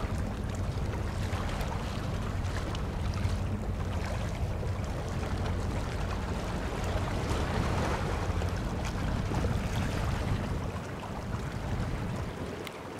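Outdoor waterside ambience: wind buffeting the microphone and water lapping, over a steady low engine hum that fades out near the end.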